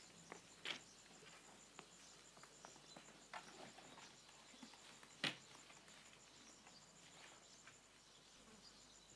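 Near silence: a few faint scattered taps and clicks, the sharpest about five seconds in, over a faint high hiss.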